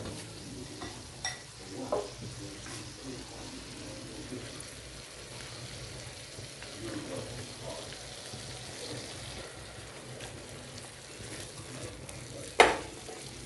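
Butter, garlic and chilli sauce sizzling in a wok while a wooden spatula stirs and scrapes the pan, with a few light knocks. One sharp knock near the end is the loudest sound.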